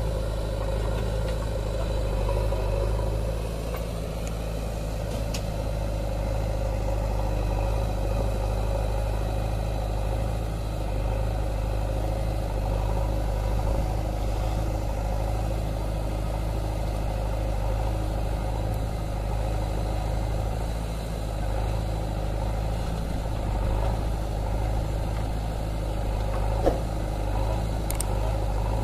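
Diesel engines of a JCB backhoe loader and a Swaraj tractor running steadily as the loader works, a low even hum with no revving. One short knock sounds near the end.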